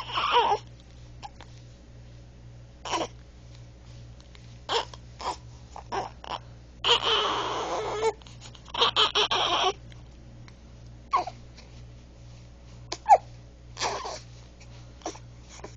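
A one-month-old baby hiccuping: a dozen or so short, sharp hiccups at uneven intervals, with a longer breathy sound about halfway through and the loudest hiccup near the end.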